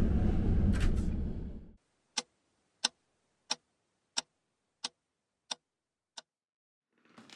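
Low rumbling train-carriage noise that cuts off abruptly about two seconds in, followed by a clock-ticking sound effect over dead silence: seven sharp ticks about two-thirds of a second apart, growing fainter.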